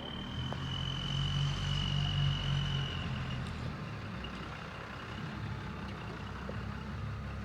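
JCB 3DX backhoe loader's diesel engine running under load, louder for the first three seconds and then easing off to a steadier, lower level. A steady high whine sits over it during the louder part.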